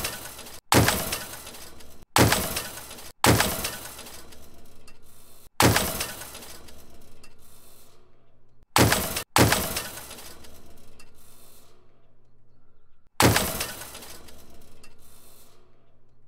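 A run of crashing, smashing sound effects: about seven loud crashes at uneven gaps, each dying away over a second or two.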